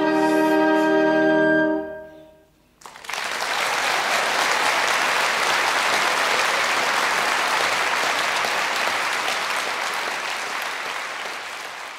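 The last held note of the song, sung with orchestra, dies away about two seconds in. After a short pause, an audience applauds steadily, and the applause fades out near the end.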